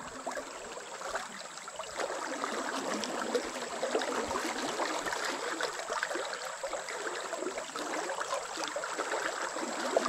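Fast-flowing river current rushing and gurgling, a steady crackling wash of water.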